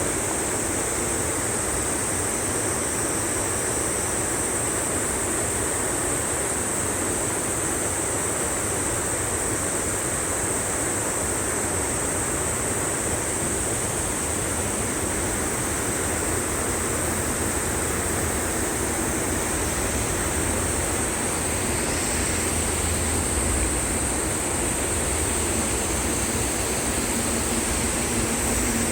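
Valley stream water rushing steadily, with a steady high-pitched hiss above it.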